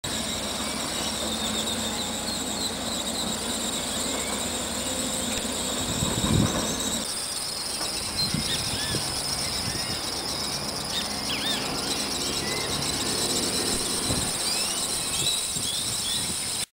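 Outdoor ambience: a steady high insect buzz, with short bird chirps scattered through the second half and a brief low thump about six seconds in.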